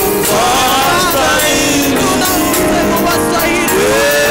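Live gospel worship music: a woman singing lead into a microphone over instrumental backing, her voice gliding through the melody and then holding one long note near the end.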